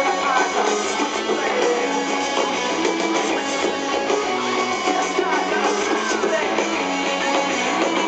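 A rock band playing live through a concert PA, with guitar to the fore, heard from the audience. The sound is thin, with little bass.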